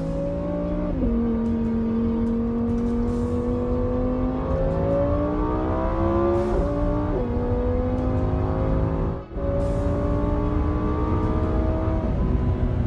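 Lamborghini Huracán's V10 engine accelerating hard on track, heard from inside the cabin: the pitch climbs steadily through each gear and drops suddenly at each upshift, about a second in and again around six to seven seconds in.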